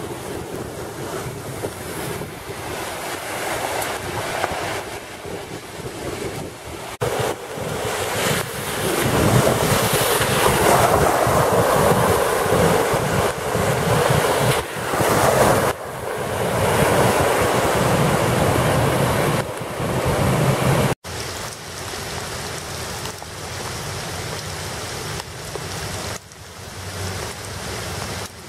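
Heavy rain with wind buffeting the microphone. Through the middle stretch comes a louder, steady rush of flash-flood runoff cascading over a stone retaining wall and along the road edge, then steadier rain near the end.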